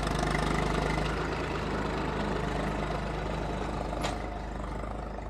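Farm tractor's diesel engine running steadily at low revs, easing slightly about a second in, with a single sharp click about four seconds in.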